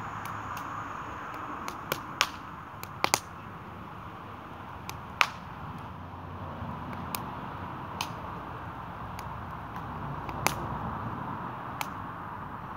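Wood campfire crackling, with irregular sharp pops, a few of them much louder, over a steady hiss.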